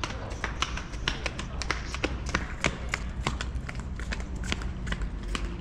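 Kittens eating from a plastic plate, close up: irregular wet chewing clicks and smacks, several a second. A steady low rumble runs underneath.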